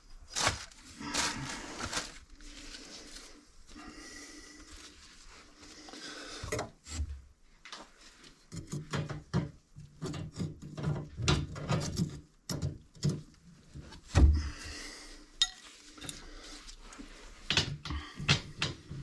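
Hands working on a black ABS sink drain inside a cabinet: irregular clicks, taps and rubbing of plastic pipe fittings, gloves and cabinet wood, with a heavy thump about fourteen seconds in.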